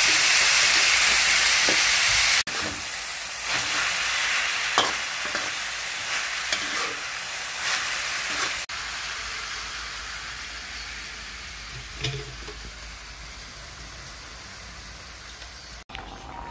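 Pork sizzling in a hot metal wok as it is stir-fried with palm sugar, a metal spatula scraping and clicking against the pan now and then. The sizzle is loudest for the first two seconds or so, then drops suddenly and goes on more quietly.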